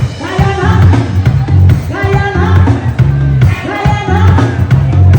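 Upbeat pop music with a sung vocal over a steady, pulsing bass line.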